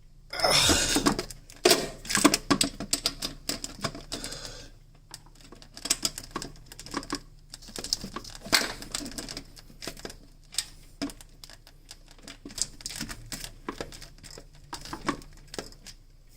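Metal tools clicking and clanking in irregular bursts as a wrench is worked on a stuck battery ground-cable nut that will not break loose, with a brief rustle and scrape of movement near the start.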